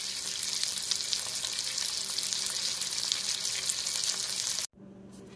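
Food frying in a hot pan, a steady crackling sizzle that cuts off abruptly near the end.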